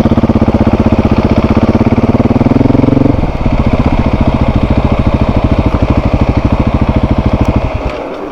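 Motorcycle engine running close by with an even pulse. Its note rises a little, drops about three seconds in, then idles steadily until it is switched off near the end.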